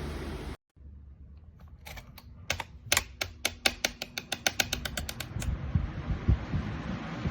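A box fan's steady rushing noise cuts off abruptly; after a short silence comes a rapid run of about twenty sharp clicks, roughly five or six a second. Then a fainter steady hiss and a few low thumps.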